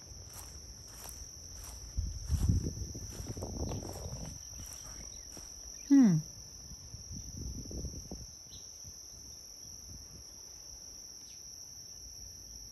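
Steady high-pitched insect trilling, crickets or the like, with a row of faint ticks in the first few seconds. About six seconds in, one loud, short sound slides steeply down in pitch.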